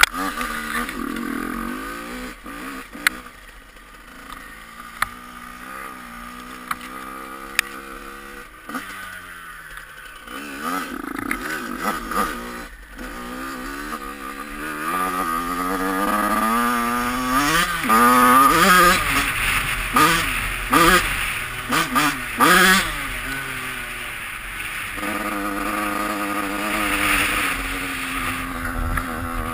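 Yamaha YZ85 two-stroke dirt bike engine running and revving up and down with the throttle. The pitch climbs through the middle, followed by a run of quick, high revs. A few sharp clicks come in the first eight seconds.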